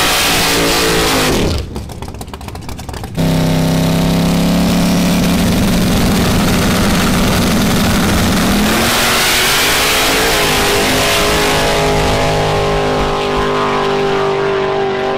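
Drag race car engines, loud, held at a steady high rev, then climbing in pitch about halfway through and holding a higher note. The sound drops away briefly about two seconds in and comes back abruptly.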